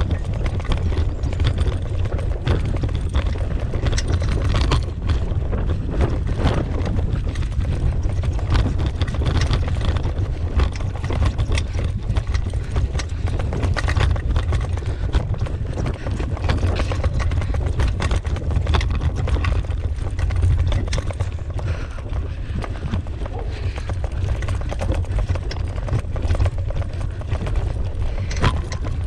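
Dog-pulled dryland rig rolling over a rough dirt trail: a steady low rumble, with constant rattling and knocking as it jolts over bumps.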